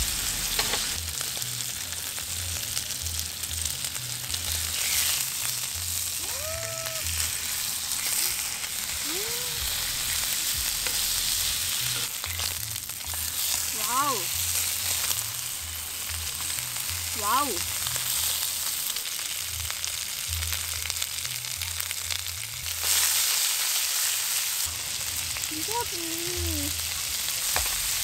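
Beef sizzling as it cooks, a steady crackling hiss. A few short pitched squeaks come now and then.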